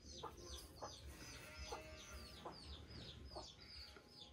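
Faint chicken clucking with a steady run of short, high, falling chirps, about three a second.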